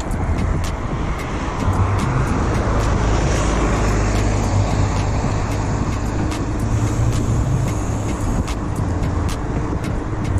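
Road traffic noise: a steady low rumble of vehicles on the road, heavier for several seconds in the middle, with light scattered clicks.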